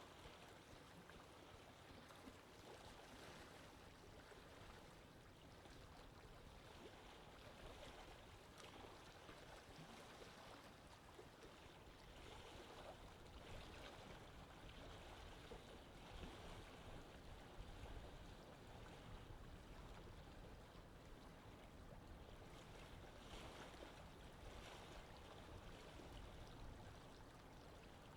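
Faint, steady wash of sea water.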